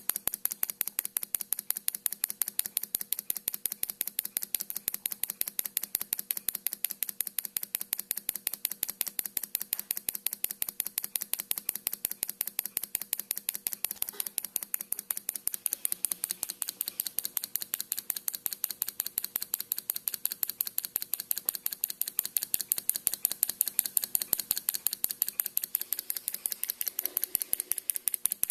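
Single-cylinder solenoid model engine running, its plunger clacking in and out of the coil as it turns the crank and flywheel: a rapid, even train of sharp mechanical clicks, several a second.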